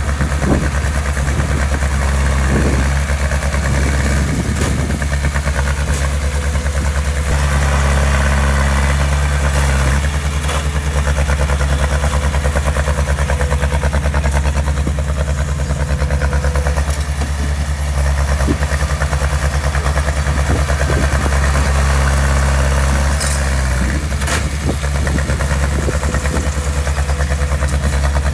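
Heavy diesel engine of construction machinery running steadily with a fast, even pulse, with a few brief knocks now and then.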